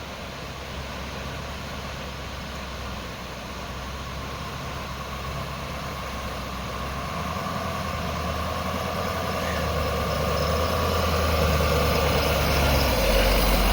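Truck engine pulling a dump trailer through snow, working steadily and growing louder, its note stepping up about halfway through and again near the end.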